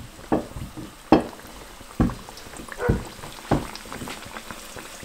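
Fry jack dough frying in hot oil in a small stainless steel pan, a steady light sizzle. Several dull knocks, about one a second, are louder than the sizzle.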